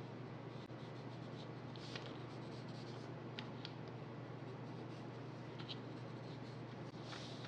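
Graphite pencil lightly scratching across sketch paper in a few short, faint strokes, over a steady low hum.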